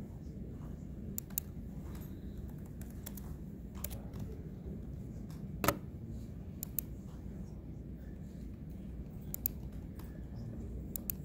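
Computer keyboard typing: irregular, scattered key clicks over a steady low room hum, with one sharper, louder click a little past halfway.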